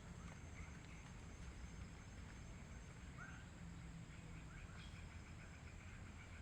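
Faint birds chirping outdoors: scattered short calls, then a quick run of repeated notes in the second half, over a steady high insect drone and a low rumble.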